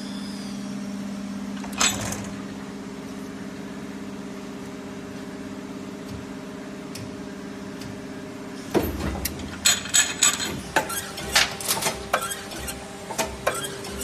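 Injection moulding machine running with a steady mechanical hum and a single knock about two seconds in. From about nine seconds a rapid, irregular run of sharp clacks and clicks sets in over the hum.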